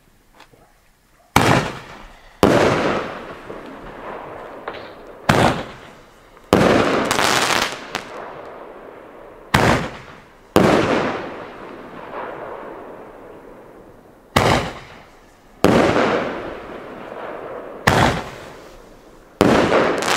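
Gao Saturn roman-light tube firing its shots one after another: about every four seconds a launch thump, followed about a second later by the shell's burst, which fades over a second or two.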